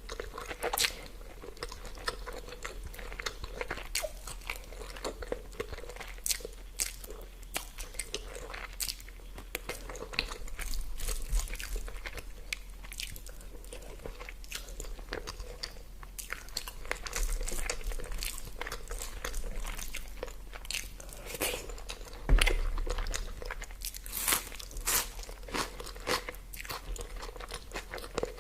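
Close-miked eating: a person biting and chewing food, with many sharp, irregular crunchy clicks and wet mouth sounds.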